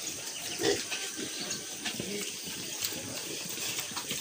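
A pen of piglets moving about and snuffling on a wet concrete floor: scuffing trotters and nosing noises, with a couple of short grunts about a second in and again near the middle.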